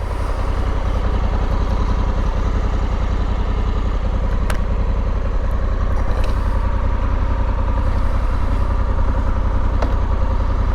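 Honda Africa Twin 1100's parallel-twin engine running steadily with an even pulsing beat, with a couple of brief clicks about four and a half seconds in and near the end.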